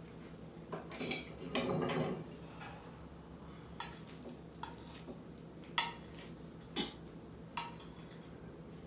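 A metal serving spoon scooping casserole out of a baking dish onto a plate: a soft scrape near the start, then four sharp clinks of the spoon against the dish and plate about a second apart.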